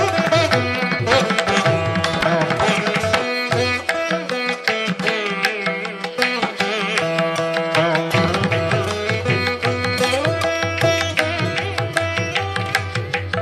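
Background instrumental music in Indian classical style: a plucked-string melody with notes that bend in pitch, over a steady pattern of drum strokes.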